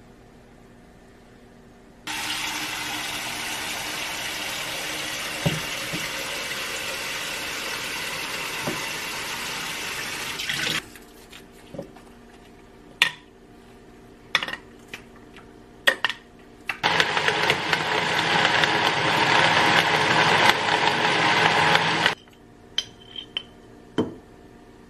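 A steady rush of noise for about nine seconds, then a series of clicks and knocks of a blender cup and utensils. After that a small personal blender runs for about five seconds, blending strawberries into a drink, and cuts off suddenly.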